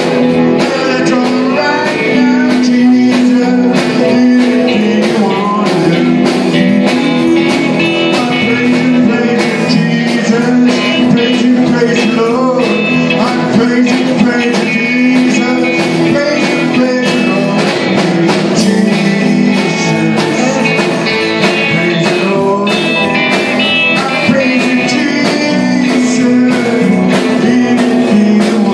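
Small live band playing an upbeat blues/rock-and-roll number: electric and acoustic guitars over a drum kit keeping a steady beat.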